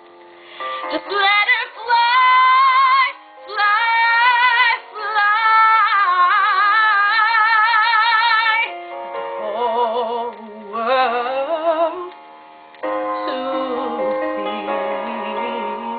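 A woman singing wordless, held notes and runs with wide vibrato over a karaoke instrumental backing. The singing is high in the first half, in phrases broken by short breaths, then drops lower for the second half.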